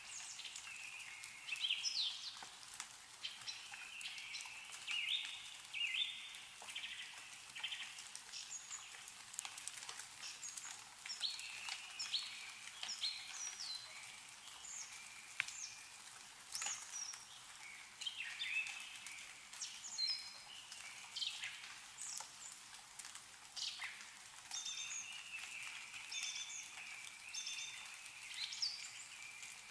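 Small birds chirping and calling over and over in short stepped notes, with scattered drips of meltwater falling from snow-laden trees.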